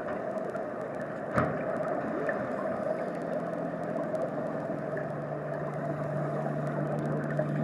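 Steady, muffled underwater ambient noise, with a low drone that grows stronger from about halfway and a single click about a second and a half in.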